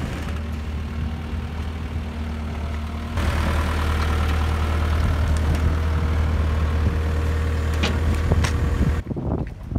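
Tracked mini excavator's diesel engine running with a steady low hum, stepping up louder about three seconds in as the machine works its boom. The sound cuts off suddenly near the end.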